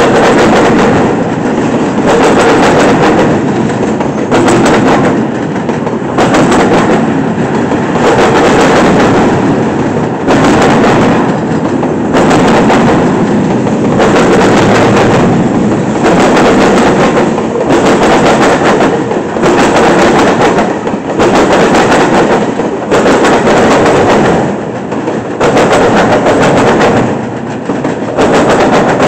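Freight cars of a long mixed train rolling past close by: steel wheels clatter and bang loudly over the track. The sound swells and dips in a regular rhythm every second or two as each car and its wheel sets go by.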